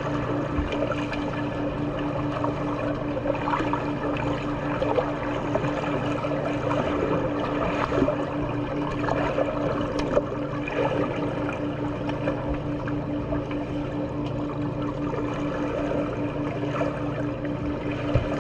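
Swimming pool water splashing and churning, with small irregular splashes, over a steady pulsing mechanical hum.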